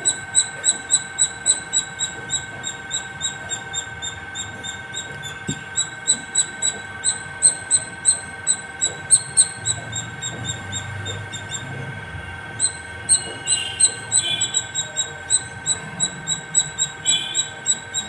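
Palm squirrel calling non-stop: a regular run of short, sharp high chirps, about three a second.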